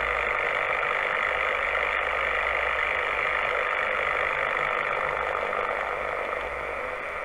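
SR-10 transceiver on the 27 MHz CB band in USB giving out a steady, loud rush of static through its external speaker, with a low hum underneath: heavy local interference (big QRM) swamping the channel. The noise eases slightly near the end.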